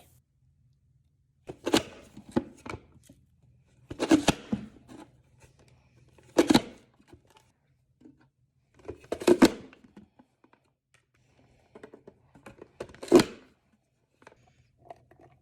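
Plunger-style vegetable chopper being used: the lid is pressed down to force food through the blade grid, landing with a sharp chopping thunk five times a few seconds apart. Smaller plastic clicks and rattles fall in between.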